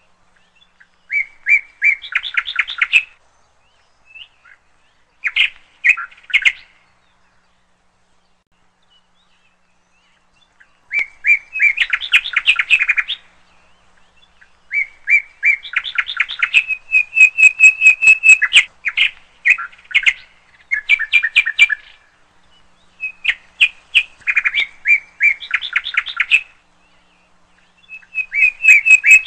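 A songbird chirping in quick trilled phrases of rapidly repeated notes, a few seconds each, broken by pauses of dead silence with no other background sound.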